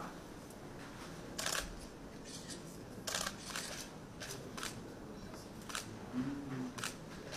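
Camera shutters clicking in an irregular series, a dozen or so sharp clicks, some in quick pairs, over faint room noise.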